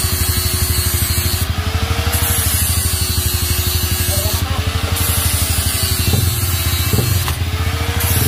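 Honda CRF150 single-cylinder four-stroke engine idling through a fabricated stainless steel aftermarket muffler. The exhaust gives a fast, steady pulse with a hiss over it.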